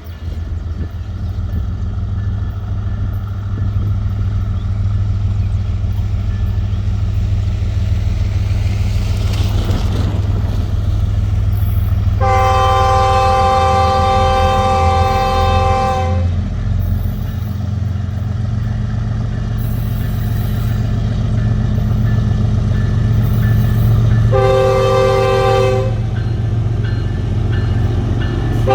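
Diesel freight locomotive running with a steady low rumble, its air horn sounding a chord of several notes: one long blast of about four seconds about twelve seconds in, then a shorter blast near the end.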